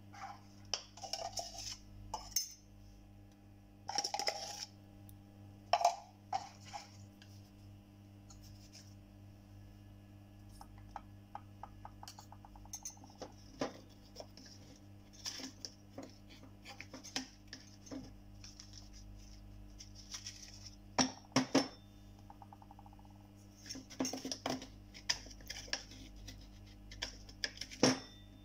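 Scattered light clinks and taps of metal kitchenware: spoons knocking against steel as powdered spices are measured into a stainless-steel bowl. A steady low hum runs underneath.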